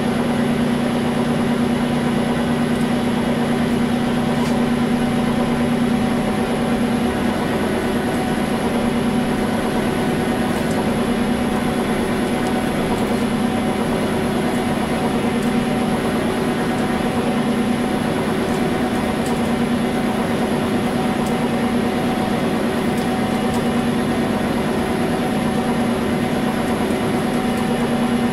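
Weiler Matador metal lathe running steadily, a constant hum from its motor and gearbox, while a drill in the tailstock drill chuck bores through a part spinning in the chuck.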